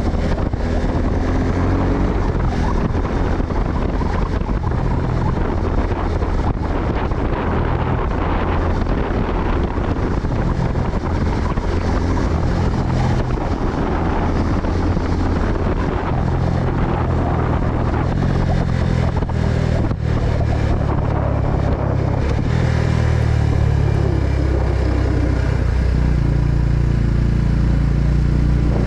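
Suzuki Gixxer 250's single-cylinder engine running at riding speed, almost buried under steady, heavy wind rumble on the microphone.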